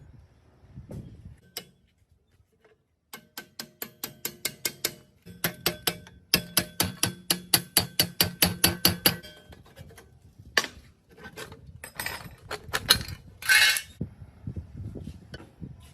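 A hammer striking metal in a fast run of blows, about five or six a second, each blow ringing. Then a few scattered knocks and a short scrape near the end.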